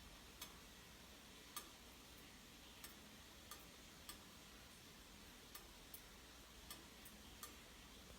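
Near silence with a faint hiss, broken by faint, sharp ticks at uneven intervals of roughly half a second to a second.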